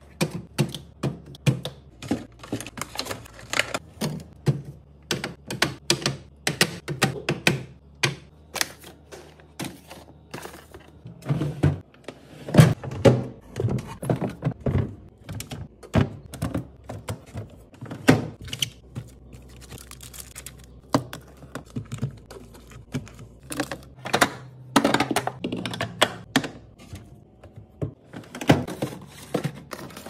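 Glass jars, cans, vegetables and plastic containers being set down and slid into place on refrigerator shelves, door bins and the crisper drawer. A steady run of clinks, taps and knocks, several a second, with a few louder thunks.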